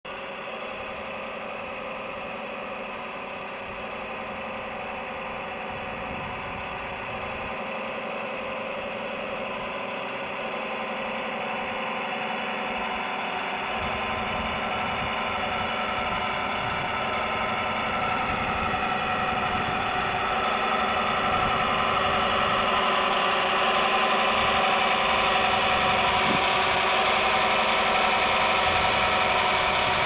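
Radio-controlled model's motor and drive running with a steady mechanical whine, growing gradually louder.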